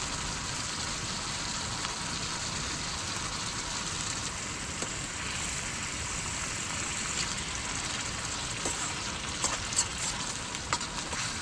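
Onion and tomato gravy sizzling in a pan on a camping gas stove, a steady hiss, with a few light clicks near the end.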